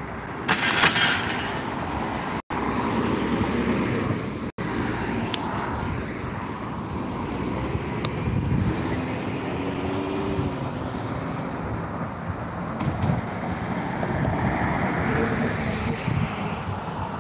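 Road traffic: cars driving past with a steady roadway noise. The sound drops out for an instant twice, a few seconds in.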